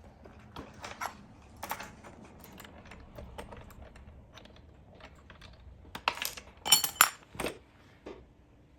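Light clicks and clinks of small metal hardware (bolts, nuts and washers) being handled and threaded together. A louder run of ringing metallic clinks comes about two thirds of the way in.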